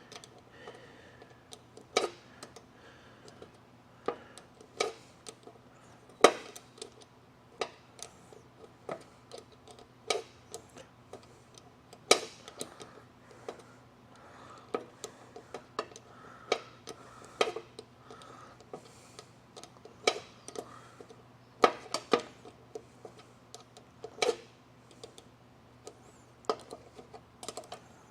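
Hand tools and bolts clinking on an engine's valve cover: scattered sharp metallic clicks and taps, about one every second or so, some louder than others, over a faint steady hum.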